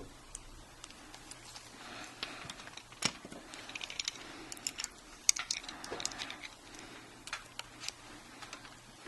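Small scattered clicks and taps of a laptop hard drive's mounting bracket and holding pins being handled and worked loose, with light rustling between them and a sharper click about three seconds in and another about five seconds in.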